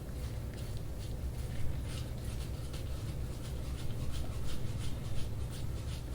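Soft-tissue work on a patient's skin: short rubbing or scraping strokes repeating about three or four times a second, over a steady low hum.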